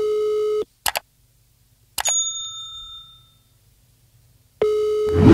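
Sound effects for a subscribe-button animation. A buzzy electronic tone plays for about a second, then a short mouse click. About two seconds in, a single bright notification-bell ding rings out for about a second and a half. The buzzy tone comes back near the end.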